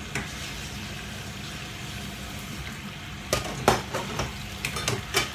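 Salmon and shimeji mushrooms sizzling in a frying pan, then, from about three seconds in, a spoon knocking and scraping against the pan several times as they are stirred.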